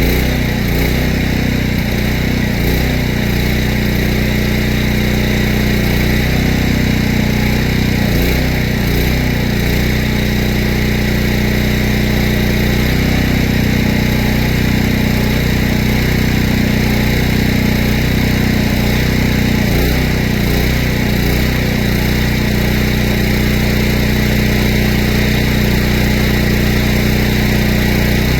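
A small engine running steadily at an even speed throughout.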